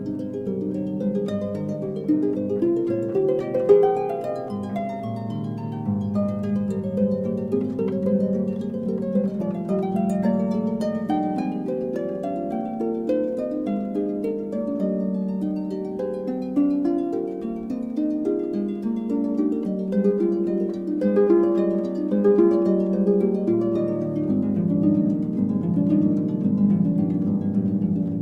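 Instrumental background music: a continuous run of plucked-string notes over a held low note.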